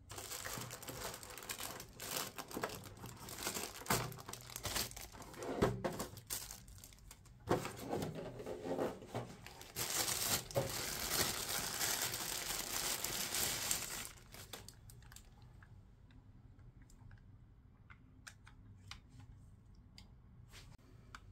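Thin white plastic wrapping crinkling and rustling as it is pulled off a folded smartphone gimbal, with sharp crackles, for about fourteen seconds. After that it turns quiet, with a few soft clicks as the bare plastic gimbal is handled and unfolded.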